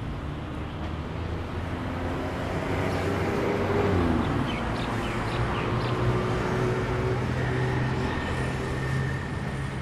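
Street traffic: engines running steadily, with a vehicle passing about four seconds in, its pitch dropping as it goes by.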